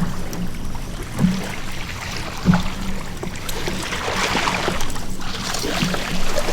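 Boat motor running steadily at trolling speed, a low hum under the wash of water and wind, with scattered small knocks and splashes against the hull.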